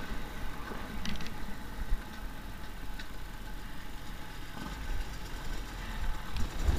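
KTM enduro motorcycle engine running steadily at low revs while the bike rolls slowly, with a few light clicks.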